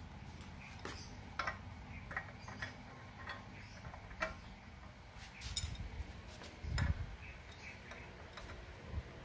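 Scattered light metallic clicks and taps as a bottom bracket cup is fitted into a bicycle frame's shell and an adjustable wrench is set on it, with two duller knocks in the second half.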